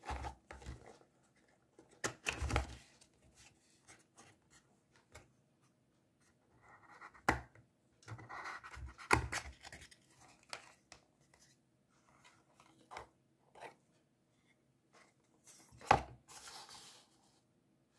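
A cardboard perfume box being opened by hand: the inner cardboard insert slid and pulled out, with scratchy rustling and scraping and scattered sharp taps and knocks.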